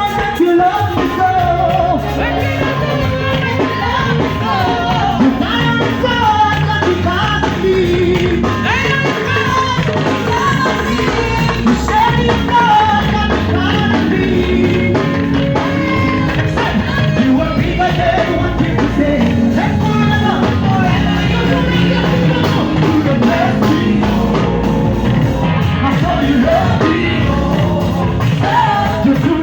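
Upbeat gospel praise music played by a band, with singing over a steady dance beat.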